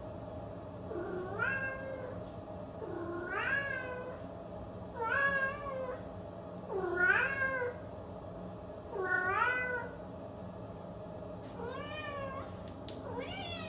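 A cat meowing repeatedly, about seven meows roughly two seconds apart, each rising and then falling in pitch, over a steady low hum.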